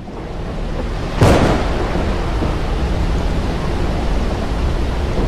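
Thunderstorm sound effect: steady storm noise fading in, with a sharp thunderclap about a second in that rumbles away, then a steady rush of wind and rain.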